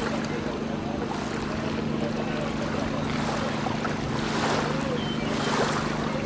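A motor running at a steady low hum, under rushing wind and water noise that swells for a few seconds in the second half.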